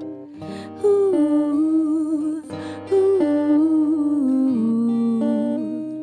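A woman singing a wordless "ooh" melody over acoustic guitar accompaniment, in two phrases that start about one and three seconds in and step down in pitch.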